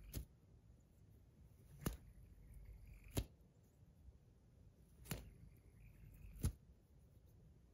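A tungsten bar fidget spinner, the NJT Nebu 2.0, spun and flicked by hand: five sharp metallic clicks at uneven intervals, with a faint whir of the spinning bar between some of them.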